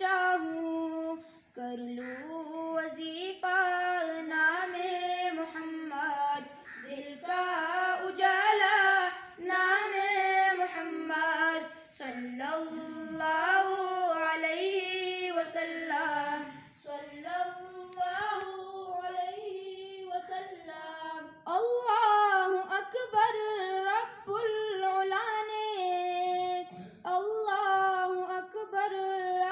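Schoolboys singing an Urdu naat unaccompanied into a microphone: long, held, ornamented phrases in a high voice, with short breaths between them.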